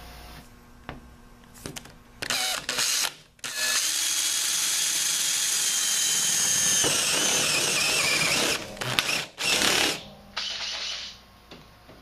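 Makita cordless drill running a Unibit-style step bit through thin furnace sheet metal to make a starting hole for the cut-out. A few short bursts, then a steady high whine of about five seconds whose pitch drops partway through, then a few more short bursts near the end.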